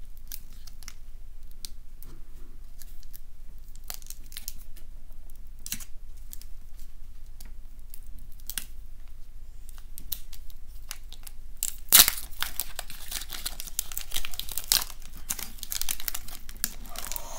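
Foil Pokémon trading-card booster pack being crinkled and torn open by hand. Sparse crackles at first, then louder, denser crinkling and tearing about two-thirds of the way in, opening with one sharp rip that is the loudest moment.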